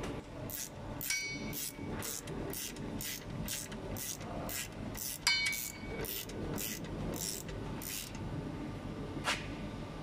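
Hand socket ratchet tightening the bolt of a truck brake caliper's pad retaining bar, each stroke a short burst of pawl clicks, about two a second. Twice, near 1 s and 5 s, metal clinks and rings against the caliper.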